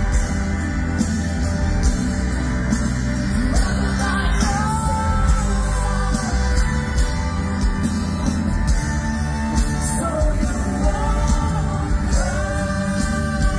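Live rock band playing a song, a singer singing over drums and electric guitars, heard loud from within the crowd.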